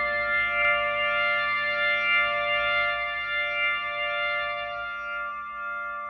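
Hammond XK-5 organ holding a sustained chord in the upper register after the bass notes drop out, the tones wavering slowly and evenly while it gradually gets quieter.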